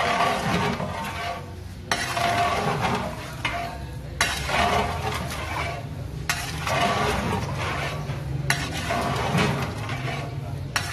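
A long-handled metal ladle stirring chicken, potatoes and masala in a large aluminium degh, scraping through the pot in sweeps about every two seconds while the masala sizzles over a medium-to-high flame.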